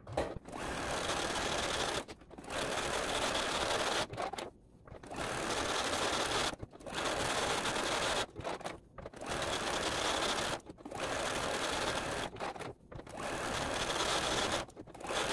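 Juki DX7 sewing machine stitching a small zigzag around appliqué leaves. It runs in spells of about two seconds with brief stops between them.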